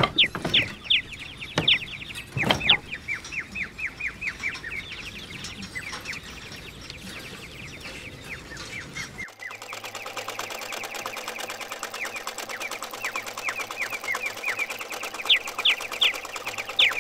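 Small birds chirping in quick, high, repeated downward chirps, several a second. In the first few seconds, a few sharp knocks of miniature bricks tumbling out of a toy wheelbarrow.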